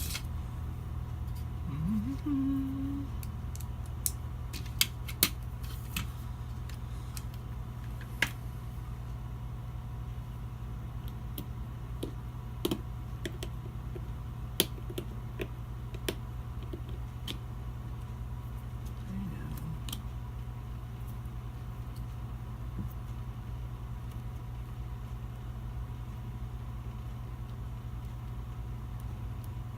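Scattered light metal clicks and taps of small hand tools and parts being handled while fitting a laser sight to a revolver, over a steady low hum.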